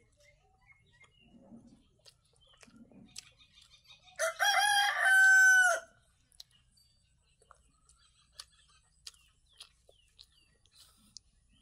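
A rooster crows once about four seconds in: a call of about a second and a half that ends on a long held note. Faint chewing and small clicks of eating by hand come before and after it.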